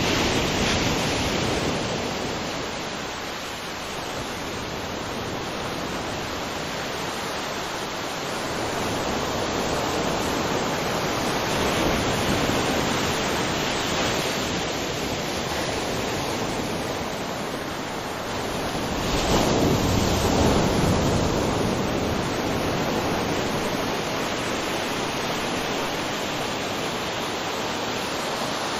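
Waterfall: a steady rush of falling water that swells and eases a few times.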